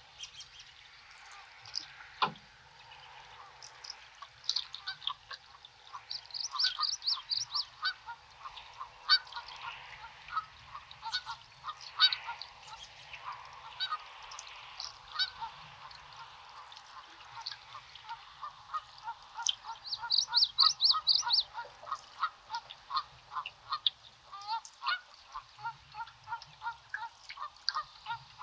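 Birds calling: a long run of short, repeated honking calls, typical of geese, mixed with bursts of rapid high trills from songbirds about six seconds in and again near twenty seconds.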